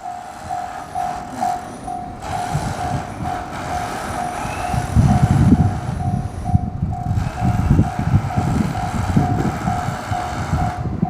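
Japanese level-crossing warning alarm ringing its 'kan-kan' at about two strokes a second, while a train passes over the crossing. The train's wheels rumble and clatter over the rails from about two seconds in, loudest in the middle.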